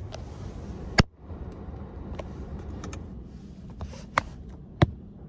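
Low steady rumble of a car and car-wash machinery heard from inside the cabin, with a faint hiss that comes and goes. Three sharp clicks cut through it, the loudest about a second in and two more near the end.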